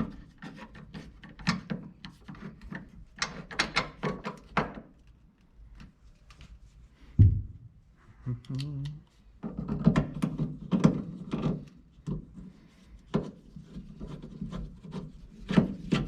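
Hand work fitting a door latch into a 1948 Chevrolet pickup door: repeated metal clicks, scrapes and rubbing of the latch parts and a screwdriver, with one heavier knock about seven seconds in.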